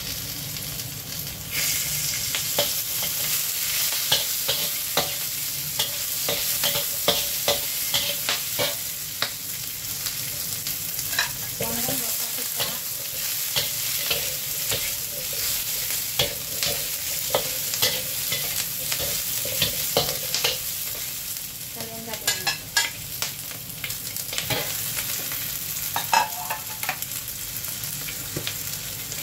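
Onion, garlic and peppers sizzling in hot oil in a wok while being stir-fried, with a metal spatula scraping and clacking against the wok many times. The sizzling gets louder about a second and a half in.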